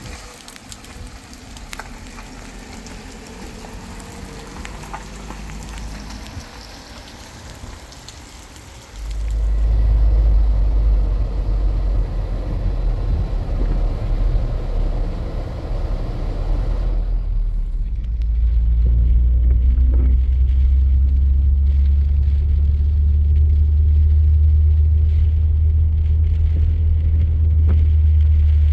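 Rain falling in an even hiss; about nine seconds in, a vehicle engine's deep, steady rumble comes in suddenly and keeps running. Just past halfway the rain hiss falls away, leaving the low engine drone, as heard from inside the vehicle.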